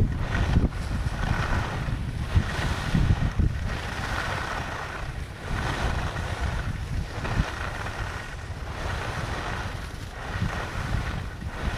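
Wind buffeting an outdoor microphone: an uneven, gusting rumble with a rush of noise above it.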